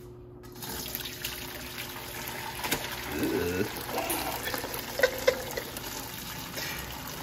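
Hot bone broth being poured from a large stockpot through a stainless-steel colander into a pot below: a steady splashing gush that starts about half a second in, with a couple of sharp knocks about five seconds in.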